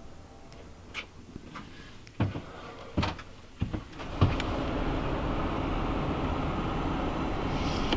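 A few separate knocks and clunks, then from about four seconds in a steady low rumble inside a vehicle cabin.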